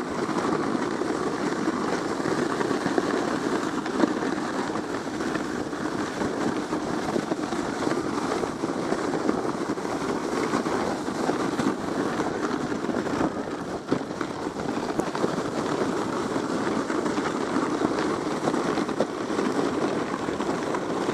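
Sled sliding fast down a packed-snow trail: a steady scraping rumble of the sled on the snow, with a few sharp knocks, the loudest about four seconds in.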